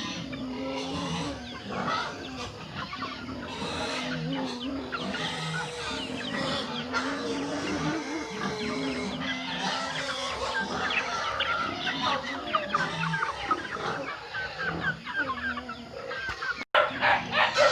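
A flock of chickens clucking and calling, many short overlapping calls throughout. About a second before the end the sound drops out for an instant and comes back louder and denser.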